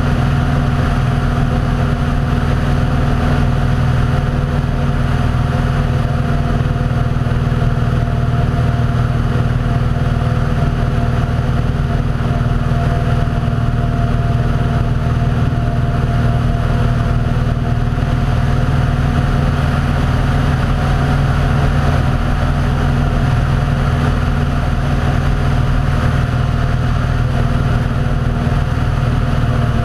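Aircraft engine droning steadily in level cruise, several even tones with a constant low rumble.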